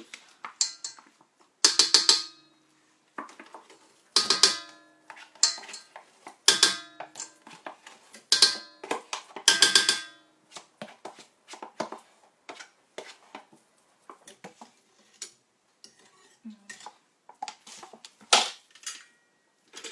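A spoon clinking and scraping against a stainless steel stand-mixer bowl while quark is scraped out of a tub into it. About seven sharp, ringing clinks, most of them in the first half and one near the end, with lighter taps between.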